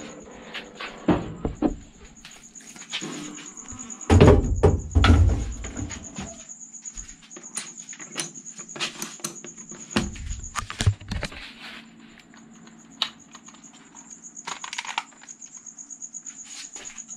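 Knocks and clunks of a sandblasting cabinet being loaded and shut, the loudest about four to five seconds in. Under it runs a steady high pulsing trill like a cricket chirping, and a faint low hum sets in about twelve seconds in.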